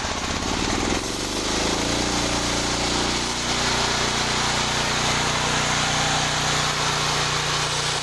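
Engine of a band sawmill speeding up over the first second or so, then running steadily under load, with a dense rasping noise over it as the blade cuts through a log.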